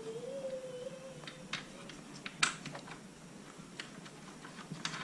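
A faint, drawn-out cat meow over the first two seconds, then scattered light clicks and taps, the sharpest about two and a half seconds in.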